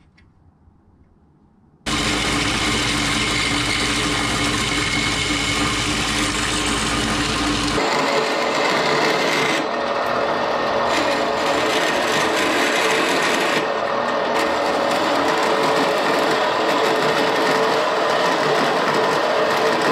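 A metal-cutting band saw starts abruptly about two seconds in and runs loudly, cutting 2-inch steel flat bar. Its sound changes about eight seconds in, losing its low hum, and the cutting continues to the end.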